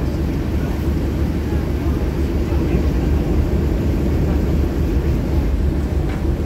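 Steady low rumble of a harbour boat's engine underway, running evenly throughout. Faint voices can be made out in the background.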